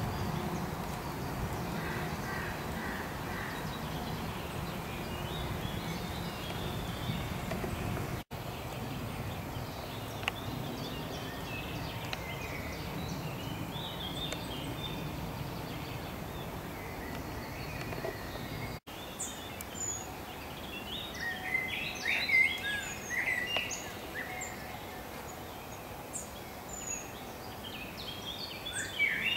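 Songbirds singing and chirping in woodland over a low steady rumble. The rumble drops away about two-thirds of the way through, and the birdsong becomes busier and louder after that.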